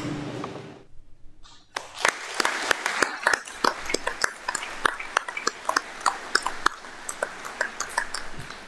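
The last chord of a musical piece dies away, then a crowd applauds from about two seconds in, with the individual hand claps distinct.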